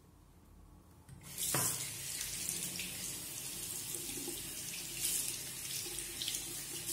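A tap turned on about a second in, water running steadily into a sink.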